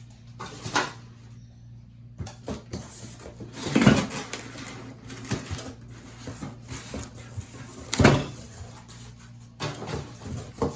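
Handling and unpacking the parts of a new bathroom exhaust fan: scattered rustling and light knocks, with two louder thumps about four and eight seconds in.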